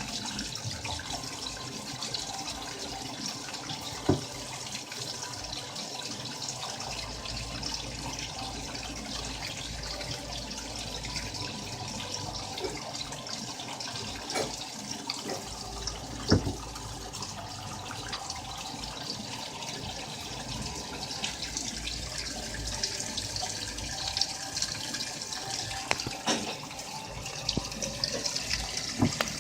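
Water running and sloshing inside a washing machine, a steady wash of noise, with a few sharp knocks, the loudest about 4 and 16 seconds in.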